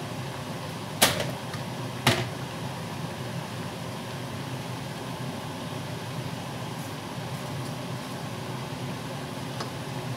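Two sharp knocks of cookware being struck, about a second apart, over a steady low hum as cabbage cooks in a pan on a gas burner. A faint tick comes near the end.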